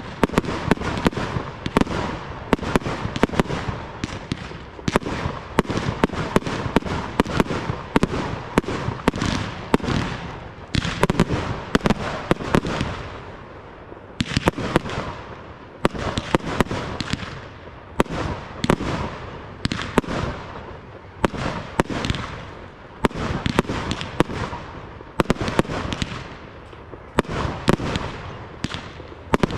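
Professional fireworks display: aerial shells and comets launching and bursting in quick succession, sharp bangs several a second over a continuous hissing rush.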